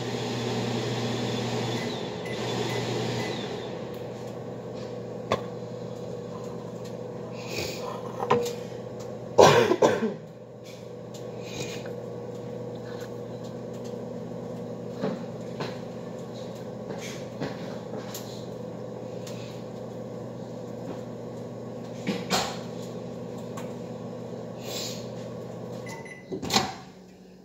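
Kitchen handling sounds: scattered knocks and clatters of utensils and cupboard doors over a steady low hum, with a loud clatter about nine seconds in and another near the end.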